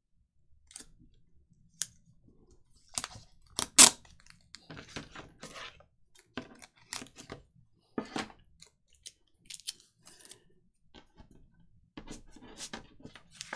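Paper being handled and fitted on a craft table: irregular rustles, taps and sharp clicks, the loudest a single click about four seconds in.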